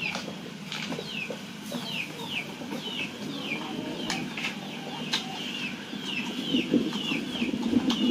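Chicks peeping: short high chirps that fall in pitch, repeated about one or two a second, with small clicks in between.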